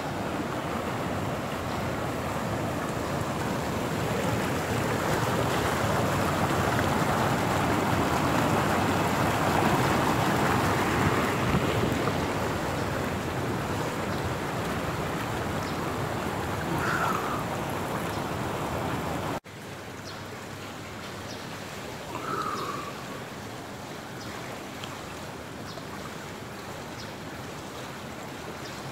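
Swimming-pool water lapping and splashing close to the microphone, held just above the surface. About two-thirds of the way through, the sound drops suddenly to a quieter, steady wash.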